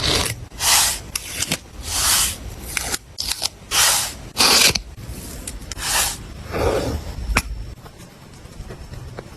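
Paper and stationery being handled for a journal spread: a series of about seven short, crisp rustling swishes with small clicks between them, then one sharp click about seven seconds in, after which it goes quieter.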